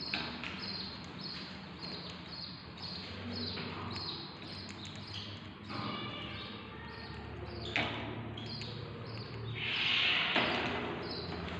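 A budgie knocking and tapping a small egg about, with one sharper knock and a louder rustling burst near the end. Under it, a light tick repeats about twice a second.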